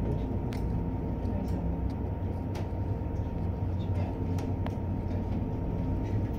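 Cabin of the Téléo cable car running along its cables: a steady low rumble and hum with a thin, steady whine above it and a few faint clicks.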